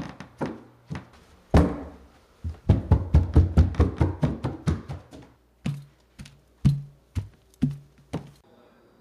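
A fast, irregular run of heavy thuds and knocks, then from about five and a half seconds in a few slower thuds, each with a short low ring.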